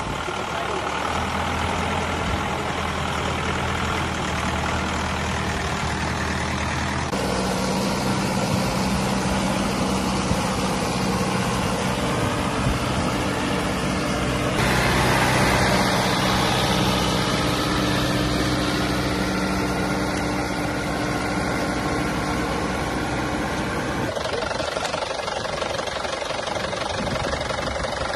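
Farm tractor's diesel engine running steadily while it works a flooded, muddy field with cage wheels and a cultivator. The engine note changes abruptly in pitch and tone three times, about seven, fourteen and twenty-four seconds in.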